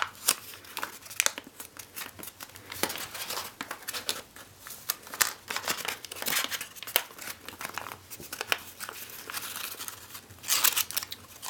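Paper being folded and creased by hand: a run of crisp crinkles, rustles and small snaps as the sheet is bent and pressed flat, with a denser burst of rustling near the end.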